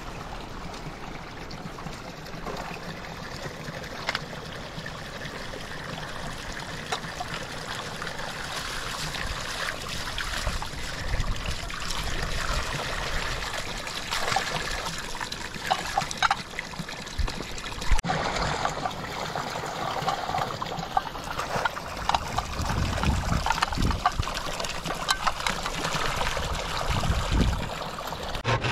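Water running steadily from a pipe into a trough, with scattered clinks and knocks of dishes and basins being washed, more of them from about ten seconds in.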